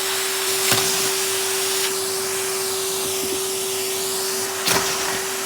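Henry canister vacuum cleaner running with a steady whine while it sucks up pieces of rubber glove. Two sharp clacks, about a second in and near the end, as it pulls in pieces.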